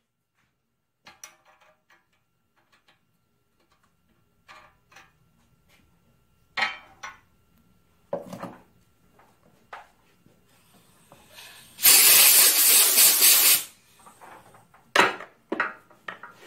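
Hand tools, a tap and tap wrench, clinking and knocking against a cast-iron engine block as they are picked up and set down. About twelve seconds in comes a loud hiss of spray lasting under two seconds, followed by a few more sharp clanks.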